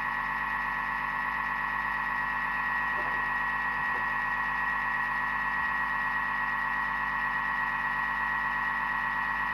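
Thermomix motor running steadily with the whisk attachment, whipping egg whites: an unbroken whine.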